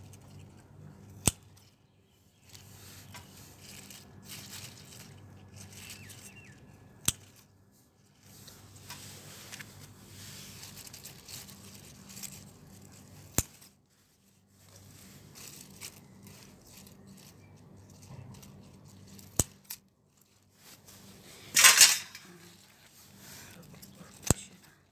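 Faint rustling and handling noise from a handheld phone moving through leafy plants. Sharp single clicks come about every six seconds, each followed by a brief dropout, and a short loud rustle comes near the end.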